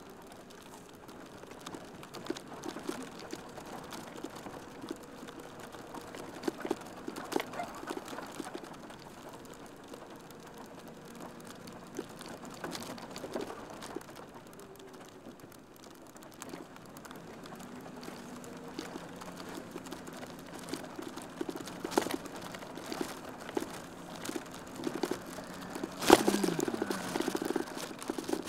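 School van's engine running at low speed as the van cruises slowly, a faint steady hum with scattered small clicks and knocks. Near the end comes a sharp knock and a short falling squeal, followed by a fast, even rattle.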